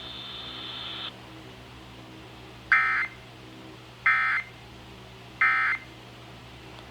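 Emergency Alert System end-of-message signal: three short, buzzy bursts of SAME digital data, each about a third of a second long and spaced a little over a second apart, marking the end of the flash flood warning.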